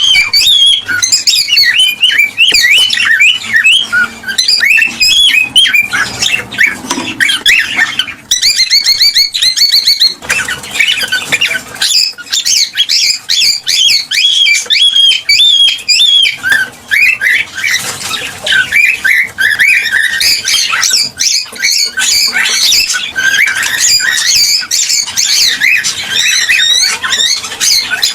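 Cockatiels chirping and squawking without pause, many short notes sliding up and down in pitch and overlapping, with a quick run of repeated notes partway through.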